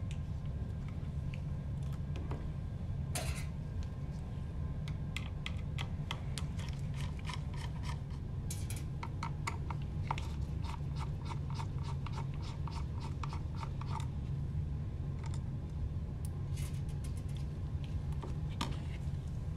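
Phillips screwdriver turning small screws out of a printhead circuit board: scattered sharp clicks, and a quick run of evenly spaced clicks in the middle. A steady low hum sits under it.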